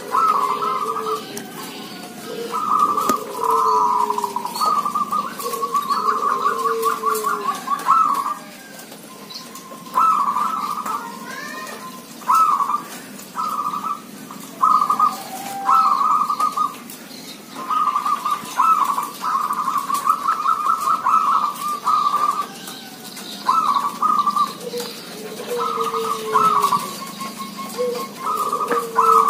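Zebra doves (local perkutut, merbok) cooing in repeated phrases of quick, trilling staccato notes, with short pauses between phrases.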